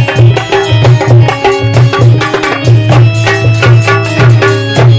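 Instrumental break in a bhajan: hand drums of the tabla or dholak kind play a fast, even rhythm of deep thuds and sharp strokes under a steady melodic accompaniment, with no singing.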